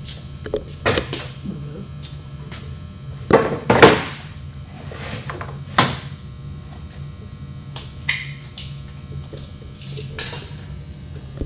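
Wooden panels being handled and positioned on a sliding table saw: a series of knocks and clunks, the loudest pair about three and a half to four seconds in, over a steady low hum.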